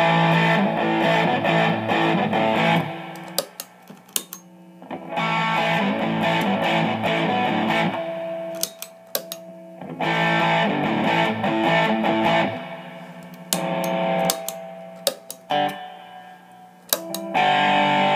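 Single-coil Stratocaster played through a 1985 ProCo Rat distortion pedal with the distortion all the way up, into a Fender Blues Deluxe amp. Heavily distorted chords come in short strummed phrases, each left to ring and die away, with string and pick clicks in the gaps.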